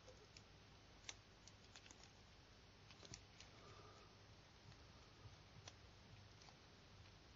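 Faint, scattered clicks and ticks of plastic as a Sony Ericsson WT19i's plastic inner frame is pried and handled with a plastic opening tool, over faint room noise.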